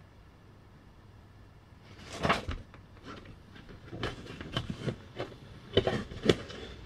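Parts of a lawnmower's grass collector being handled: after about two seconds of quiet, a run of irregular knocks, clicks and rustles, loudest near the end.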